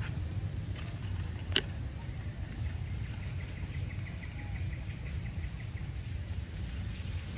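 Outdoor background noise: a steady low rumble with a faint, steady high-pitched tone above it, a single sharp click about a second and a half in, and a faint rapid ticking in the middle.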